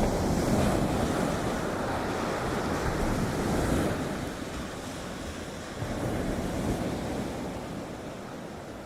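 Sea surf washing onto a sandy shore with wind: a steady rush of waves, fading down over the last few seconds.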